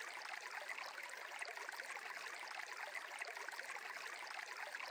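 Faint, steady background ambience of flowing water, like a gentle stream, with no tones or distinct events.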